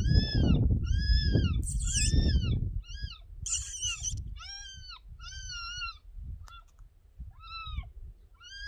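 Grey fox giving a series of high-pitched barks, about one a second, each rising then falling in pitch. A low rumble sits under the first three seconds, and two short hissy noises come about two and three and a half seconds in.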